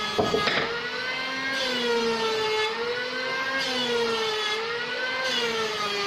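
Large band sawmill running: a steady whirring hum that rises and falls slightly in pitch, with a brief rattle just after the start.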